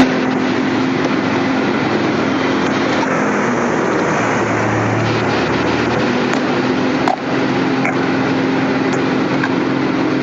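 Plastic crushing and milling machine running steadily: a dense, loud grinding noise with a steady hum underneath, briefly dipping about seven seconds in.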